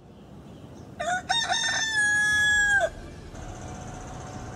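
A rooster crowing once: a few short broken notes, then a long held note that drops off at the end, about two seconds in all.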